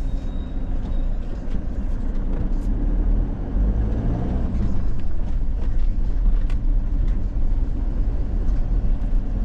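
Camper van rolling slowly, heard from inside the cab: a steady low rumble of engine and tyres, with a few light clicks.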